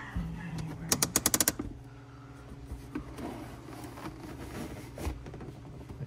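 A screw-driving tool clicks rapidly about a second in, eight or so sharp clicks in about half a second, as Phillips screws are backed out of a car's center console. Softer handling noises follow.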